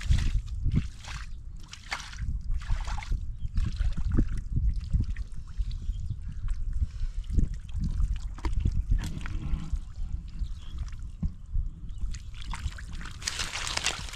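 Hands sloshing and groping through shallow muddy water, with small splashes and trickles, and a louder spell of splashing near the end.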